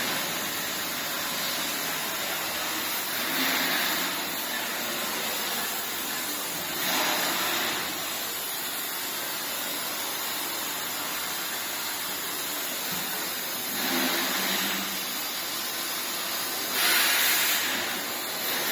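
Industrial dehumidifiers running: a steady rush of fan airflow, with a few brief louder swells.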